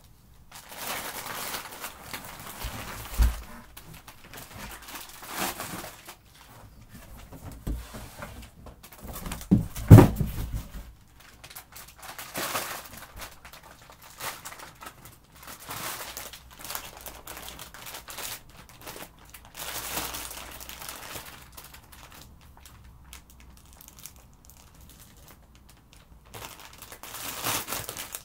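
Clear plastic bags crinkling and rustling in irregular spells as wrapped fursuit parts are handled and pulled out of a cardboard box, with two dull thumps, the louder one about ten seconds in.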